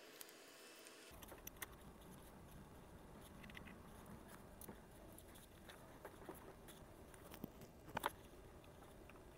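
Faint, scattered clicks and taps of hand tools and small fittings on the metal frame of a racquet diagnostic machine being assembled, with one sharper click about eight seconds in.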